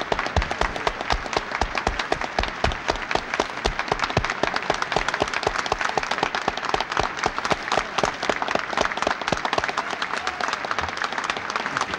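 An audience applauding: many hands clapping continuously, with some heavier thuds among the claps in the first few seconds.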